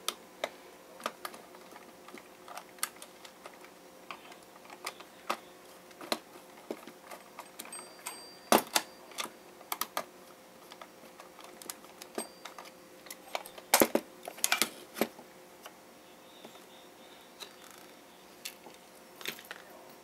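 Irregular plastic clicks, snaps and knocks as the back cover of a twin-bell alarm clock is worked loose and pried off by hand, with a few louder snaps about halfway through.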